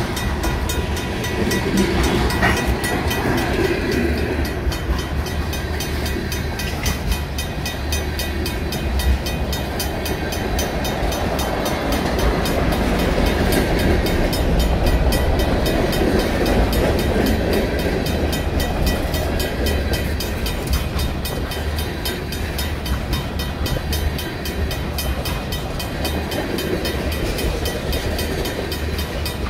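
Freight train cars (covered hoppers and tank cars) rolling past a grade crossing, their wheels rumbling steadily on the rails. Over them a RACO mechanical crossing bell rings on with rapid, even strokes.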